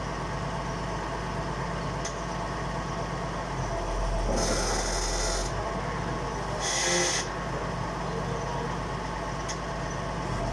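Engine of an excavator-mounted drilling rig running steadily, with two short bursts of hissing, the first about four seconds in and a shorter one about seven seconds in.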